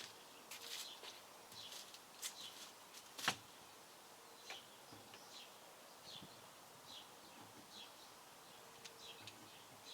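A small bird chirps faintly outdoors, giving short, high chirps repeated about once or twice a second, with a single sharp click about three seconds in.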